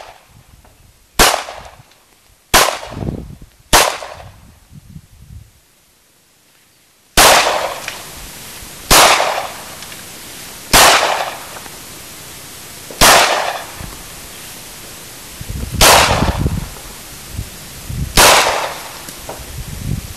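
A 9mm Glock pistol firing single shots, each a sharp crack with a short ringing tail. Three come about a second and a half apart, then after a pause of about three seconds six more follow at roughly two-second intervals.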